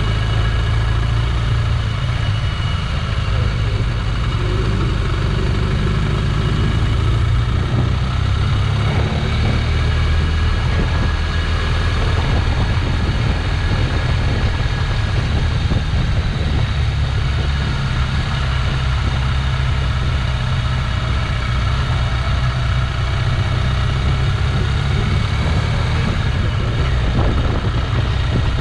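Motorcycle engine running steadily while being ridden, with a constant low rumble and little change in speed.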